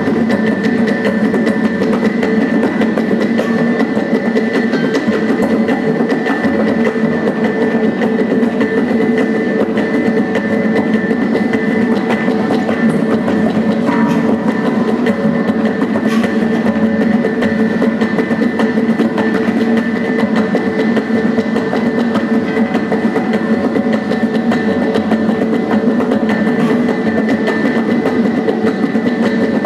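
Traditional gong-and-drum ensemble music for Tausug pangalay dance, playing continuously: steady ringing gong tones under a fast, dense beat of drum and wood-like strokes.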